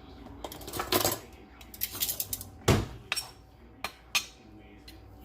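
Kitchen utensils clinking and scraping against dishes in a string of separate clatters, the loudest a little past the middle.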